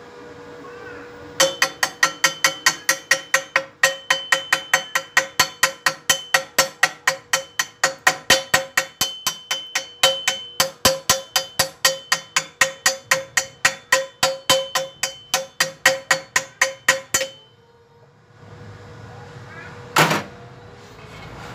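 Chipping hammer rapidly striking a fresh stick weld on a hollow square steel tube to knock off the slag, about four strikes a second, each hit making the tube ring. The strikes stop abruptly, and one more sharp knock comes near the end.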